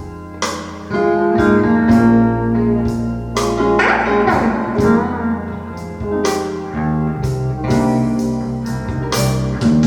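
Blues song played through Bowers & Wilkins 705 Signature speakers: an instrumental passage of plucked guitar notes, struck about twice a second, over a steady bass line, with no singing.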